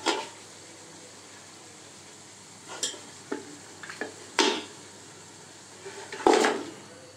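Masala sizzling gently in an aluminium pot, with a metal spoon knocking and scraping against the pot and a plate several times as calf trotters are tipped into the pot. The loudest knocks come near the start, about four and a half seconds in, and near the end.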